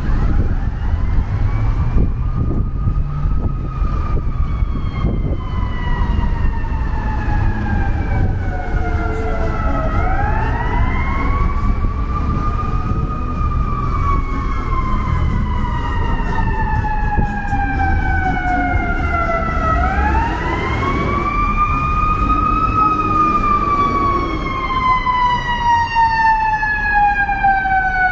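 Emergency vehicle siren wailing in slow cycles: each rises over about three seconds and falls slowly over about seven, three times in a row, over a steady low traffic rumble.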